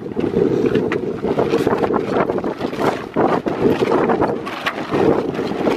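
Strong wind buffeting the microphone while a loose roller-furling jib flaps at the forestay, with irregular sharp snaps of sailcloth.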